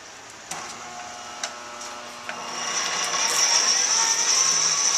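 A few clicks, then a corded 1/2-inch electric drill, run through a speed controller, starts about two and a half seconds in and climbs to a steady high whine as it turns the wire-winding spindle.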